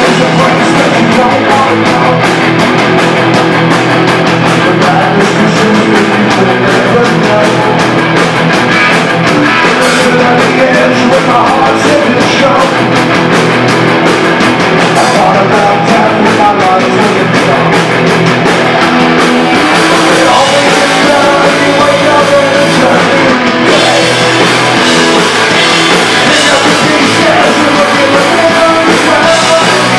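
A rock band playing live and loud: distorted electric guitars, bass and a drum kit with crashing cymbals, steady with no break.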